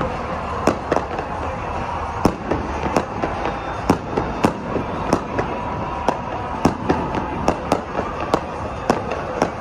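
Aerial fireworks bursting overhead: irregular sharp bangs, more than one a second, over a steady background din.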